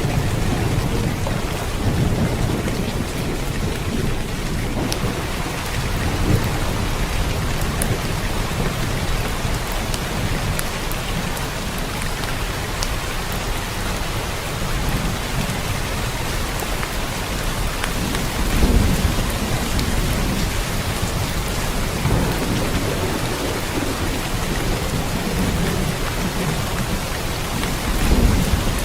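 Steady rain falling, with low rumbles of distant thunder swelling now and then, the strongest about two-thirds of the way through and again near the end.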